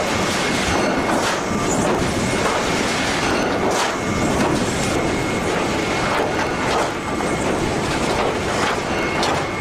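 Car assembly line machinery running: a steady clattering din with scattered metallic clicks and knocks and a faint high steady tone underneath.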